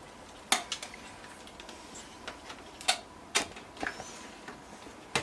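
Five or six sharp, irregularly spaced clicks and knocks from parts being handled during a desktop PC power supply replacement.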